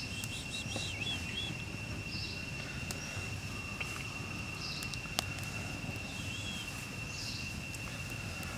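Forest ambience: a steady high-pitched insect tone with short bird chirps and a brief call repeating about every two and a half seconds, over a low steady rumble, with a couple of sharp pops from the small wood fire.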